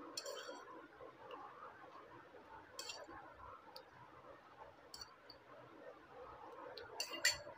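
Faint clinks of a steel spoon against a steel tumbler as it is dipped for water: a few scattered clinks, then a quick run of them near the end, over low room hiss.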